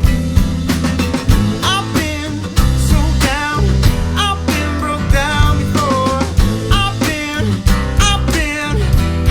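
Rock band recording: a drum kit plays a steady beat under bass and guitar, with a sliding, bending melodic line on top.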